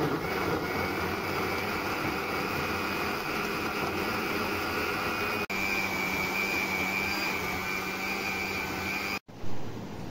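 Electric mixer-grinder running steadily with a motor whine, grinding cooked vegetables and water to a puree, with a very brief break about five and a half seconds in. Near the end it cuts off, followed by a short knock and the puree pouring into a mesh strainer.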